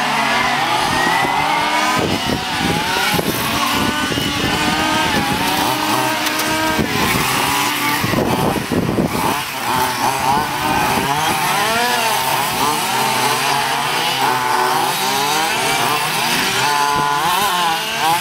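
Several radio-controlled model race cars' small two-stroke engines running together, their overlapping whines rising and falling in pitch as the cars accelerate and brake around the circuit.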